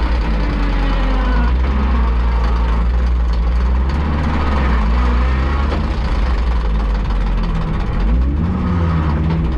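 Audi S2-R's turbocharged five-cylinder engine running at low revs as the car rolls slowly into the pits, its pitch shifting only a little, with a brief rise and fall near the end.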